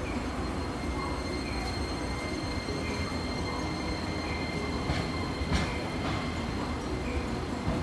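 Hiroshima Electric Railway 5100-series Green Mover Max low-floor tram pulling away from the platform, its running gear rumbling with a steady high whine over it. Two sharp clicks about five seconds in.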